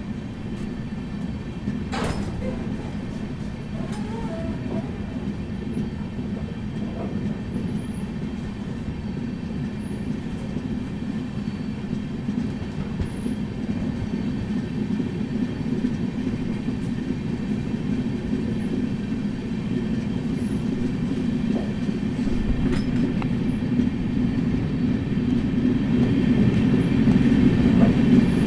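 Indian Railways train running: a steady rumble of wheels on the rails that grows gradually louder, with a sharp click about two seconds in.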